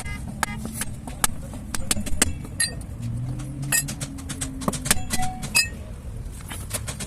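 Metal tools clinking and tapping irregularly on car parts, some strikes ringing briefly, over a steady low rumble.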